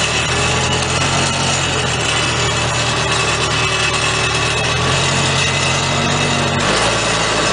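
Engine running steadily at a constant speed; the engine tone changes abruptly about a second before the end.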